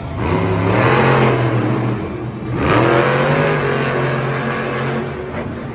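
Motor revving in two surges, each rising in pitch and then holding, the second starting about two and a half seconds in and fading near the end.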